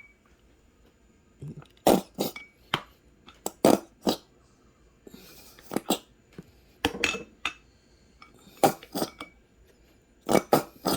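A spoon knocking and scraping against a container while mayonnaise is scooped out. There are scattered sharp clinks and knocks in small clusters, with a brief scraping rustle about five seconds in.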